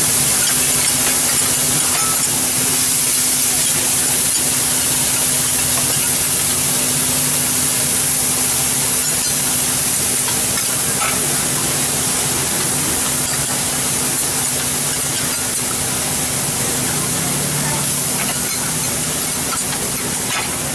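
Bean sprouts sizzling on a hot teppanyaki steel griddle, a loud steady hiss as they steam, with a few light clicks of the metal spatulas tossing them and a steady low hum underneath.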